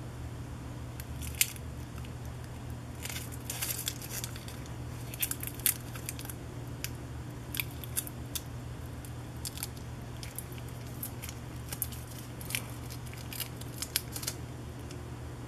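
Clear packing tape crackling in irregular short clicks as nitrile-gloved fingers wrap it and press it down around the edges of a 3D-printed part, over a steady low hum.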